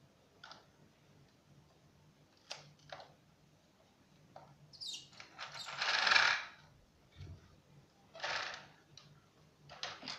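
A Lego brick model being handled and turned around on a tile floor: scattered plastic clicks and knocks, with a louder scrape about six seconds in and another just past eight seconds.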